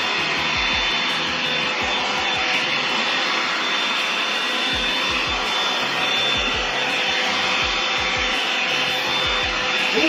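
Revlon paddle-brush hair dryer running continuously as it is worked through hair: a steady, really loud rush of blown air with a thin high whine over it.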